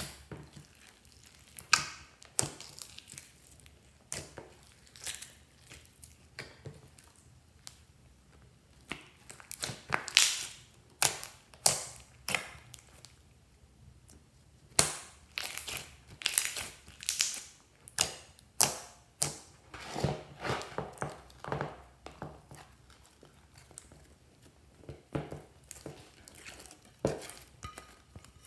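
Hands kneading, folding and stretching glossy slime loaded with glitter, foam pieces and powders: an irregular run of sticky pops and crackles, some of them sharp and loud.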